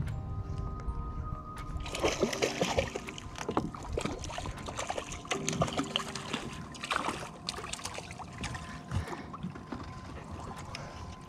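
A hooked jack crevalle splashing and thrashing at the surface beside the boat as it is reeled in, a run of sharp splashes starting about two seconds in, over background music.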